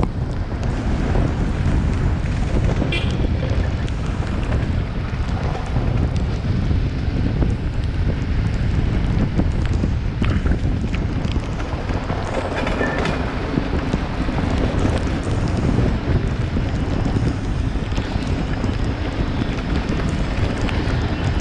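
Steady wind rush buffeting the microphone of a moving vehicle, over a constant low rumble of road noise.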